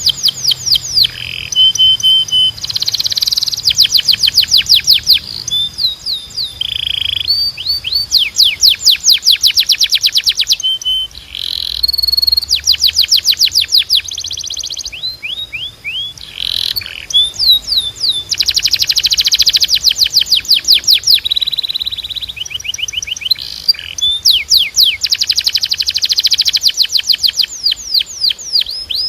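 Timbrado song canary singing: rapid rolls of repeated high notes that change speed from phrase to phrase, with a few short held whistled notes and brief pauses between phrases.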